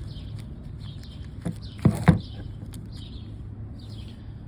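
A few sharp taps and clicks about two seconds in, from hand tools and small carburetor parts being handled as the carburetor's screws come off. Birds chirp repeatedly in the background.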